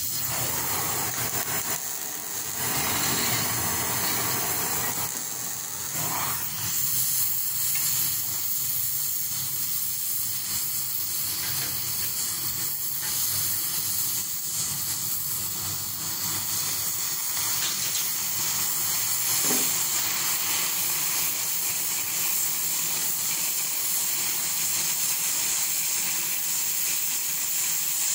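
Oxy-fuel cutting torch on a circle-cutting guide hissing steadily as its oxygen jet cuts through thick steel plate.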